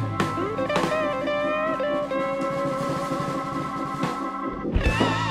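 Background music with guitar and drums, carrying a long, slightly wavering held note through the middle.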